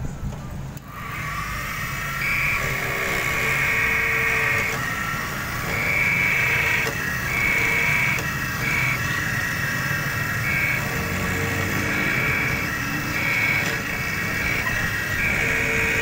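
Vertical key-copying machine running, its motor starting about a second in with a steady whine, while the cutter mills a duplicate key blank and a tracer follows the original key. The whine's pitch steps up and down as the cutter works along the blade.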